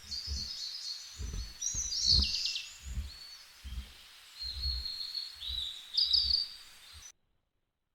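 Small birds chirping and trilling in quick, high bursts, over soft low thuds that come roughly every 0.7 s; the sound stops abruptly about seven seconds in.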